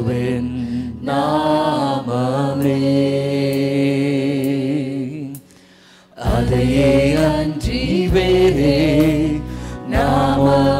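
Christian worship music: long held melodic lines that waver in pitch over a steady accompaniment. It breaks off briefly about five and a half seconds in and comes back with a deeper bass.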